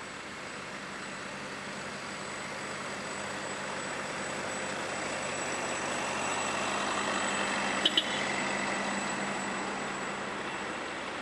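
Parked lorries running with a steady mechanical hum that swells to its loudest about eight seconds in and then eases off. Two sharp clicks come close together at the peak.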